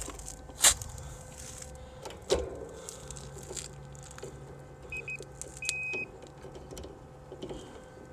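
Two sharp clicks of metal tools or meter probes on the air conditioner's cabinet, then two quick electronic beeps about five seconds in and a longer beep just after, from a handheld electrical meter used to test the unit's wiring.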